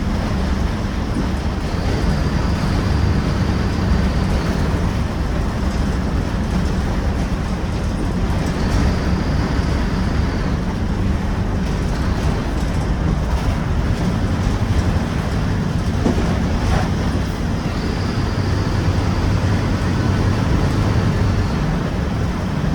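Mercedes-Benz OF-1721 bus's diesel engine running steadily while the bus is under way, a continuous low drone. A faint high whine comes and goes a few times over it.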